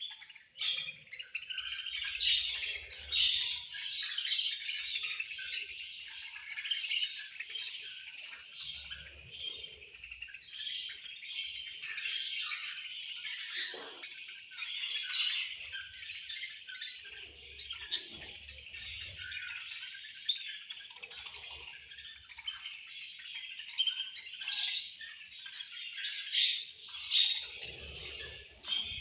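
A flock of budgerigars chirping and chattering all at once, many birds overlapping without a break.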